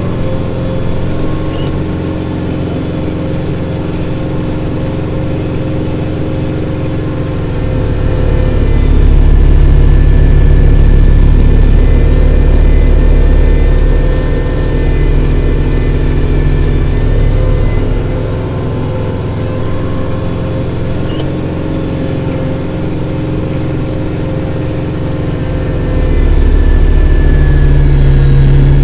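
Kubota diesel tractor running steadily, working a snow blower; the low engine note swells louder twice, from about eight to fourteen seconds in and again near the end, as it takes more load.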